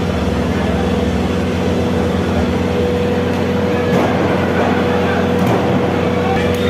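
Steady din of a lucha libre arena crowd over a constant low electrical hum, with one sharp thud about four seconds in, typical of a wrestler hitting the ring.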